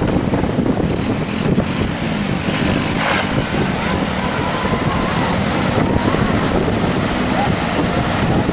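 Wind buffeting the microphone over a loud, steady rush of noise.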